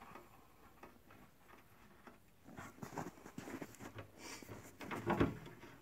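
Hands tightening black oxide stainless steel knurled thumb screws on a truss telescope's wooden mirror box: faint, irregular small clicks and scrapes, starting about halfway in after a quiet stretch.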